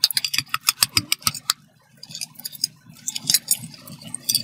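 Hard-boiled eggs tapped and cracked against steel plates: a quick run of sharp clicking taps for about the first second and a half, then scattered taps and the faint crackle of shell being peeled off.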